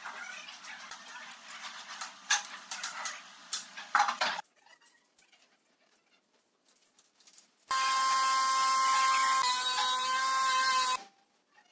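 Pencil scratching and a steel square tapping and sliding on a pine board for about four seconds. Near the end, a small electric power tool's motor whines steadily for about three seconds, dipping slightly in pitch partway through.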